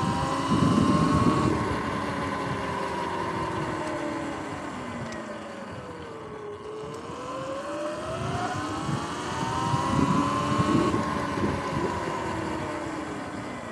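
Sur-Ron X electric dirt bike's motor whine rising in pitch as it accelerates, falling low as it slows almost to a stop about halfway through, then climbing again and falling away near the end. Wind rumbles on the microphone while it speeds up.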